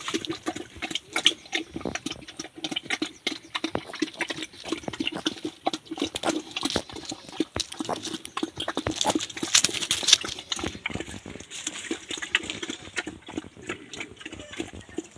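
Young piglets grunting, mixed with many short irregular crackles from dry leaves and litter as they move. The sound is busiest around the middle and thins out near the end.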